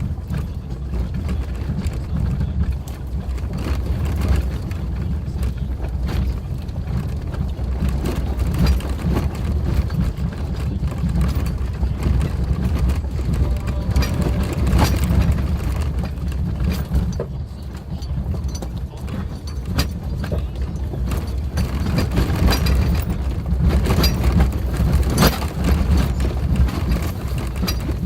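Suzuki Jimny driving along a rough forest road: a steady low rumble of engine and tyres, broken by frequent knocks and clatters from bumps, with a few sharper bangs near the middle and near the end.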